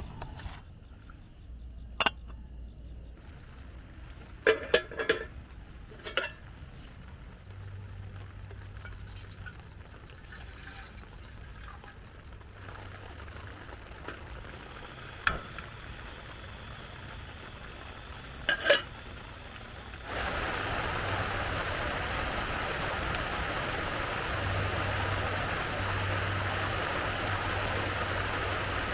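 Rain on a tent: a few sharp, scattered taps over a quiet patter, then about two-thirds of the way through a heavier, steady hiss of rain starts abruptly.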